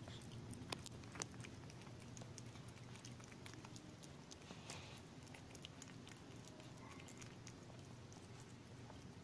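Faint wet clicks and smacks of a mother cat licking and nibbling her newborn kitten clean, with a few sharper clicks in the first second and a half.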